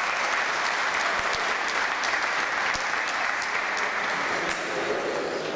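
A crowd of children and adults applauding, a steady patter of many hand claps that eases a little near the end.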